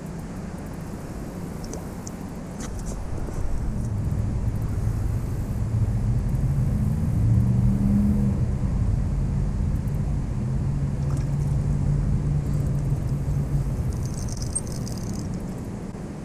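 A motor vehicle's engine passing close by: a low rumble that builds from about four seconds in, is loudest around the middle and fades toward the end.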